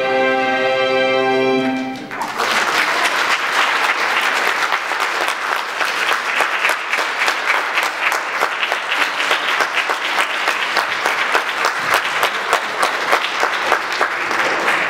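A string orchestra of violins, cellos and double bass holds its final chord for about two seconds and cuts off. The audience applauds steadily for the rest of the time.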